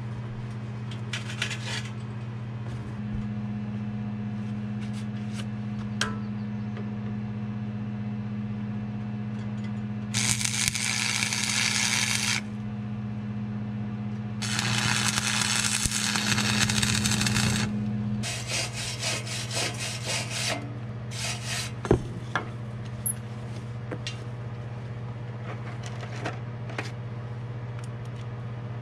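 Stick (arc) welder burning 7014 electrodes on steel, the arc crackling and hissing in three runs between about ten and twenty-one seconds in, the last broken into short stuttering bursts. A steady low hum lies underneath, and a single sharp knock comes a little after twenty seconds.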